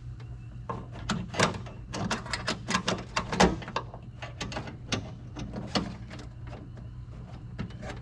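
Quick, irregular clicks and rattles of a release cable and its plastic clips being handled against the sheet-metal inner frame of a Honda Civic trunk lid. The clicks thin out after about six seconds.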